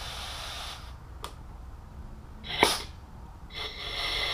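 Compressed air hissing through a GM EVAP canister vent solenoid valve on a 12 V bench test, dying away to a faint leak and stopping, with sharp clicks about a second in and, loudest, past halfway. The air hisses again near the end. The valve shuts off the air when powered and passes it when not, the sign of a normally open vent valve working properly.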